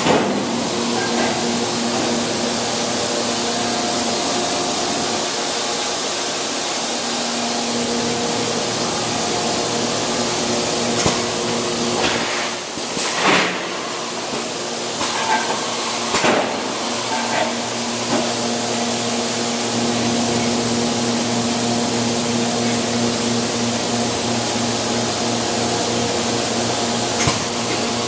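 Industrial plastics-processing machinery running, with a steady hum and a hiss like air or a vacuum system. A few sharp knocks or clanks come near the middle and once near the end.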